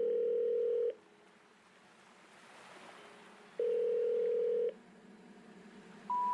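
Telephone ringback tone: two long low buzzing tones about three seconds apart. Near the end come three short rising tones, the special information tone that comes before a recorded telephone intercept message.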